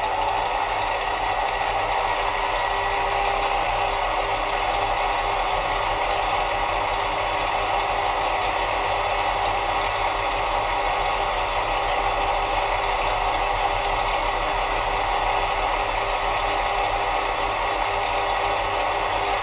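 Mini lathe running at steady speed while a twist drill in the tailstock chuck bores into the end of a spinning aluminium bar: a steady motor whine with the rattle of the machine and the cutting.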